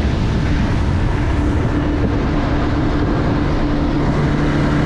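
A 2018 Yamaha F90 four-stroke outboard running at speed, a steady engine hum over a loud rush of wind and spray from the wake. A second, lower hum joins in near the end.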